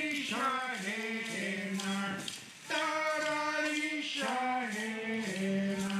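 Voices singing a chant in long held notes that slide from pitch to pitch, with a short break about halfway through.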